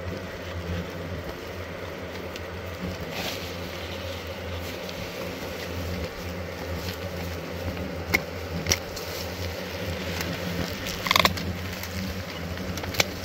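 Steady low buzz of many hornets swarming at their ground nest while it is being cut open, with a few sharp clicks near the end.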